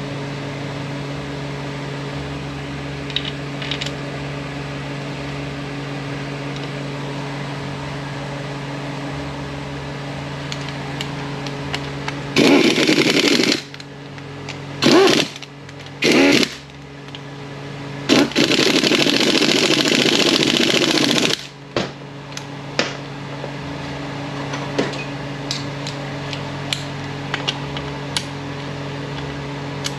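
Air ratchet running bolts into a transfer case housing in four bursts, three short ones and then a longer run of about three seconds, over a steady background hum. A few light clicks of a hand ratchet near the end.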